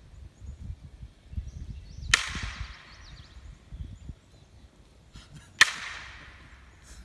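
Two loud sharp cracks about three and a half seconds apart, each dying away over about a second.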